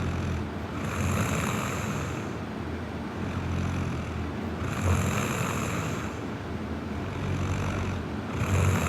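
A young woman snoring in her sleep, a low rattling snore with breaths swelling about every three to four seconds, three times.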